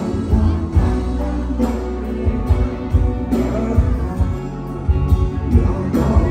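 Live rock band playing a Thai song: a man singing into a microphone over electric guitars, bass and a steady drum beat.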